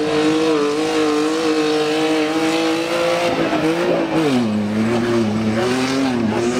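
Engine of a 4x4 off-road SUV running hard at steady revs. The pitch rises briefly and then drops sharply as the vehicle passes close by, about four seconds in. It runs on at a lower pitch with small rises and dips as it drives away across the dirt track.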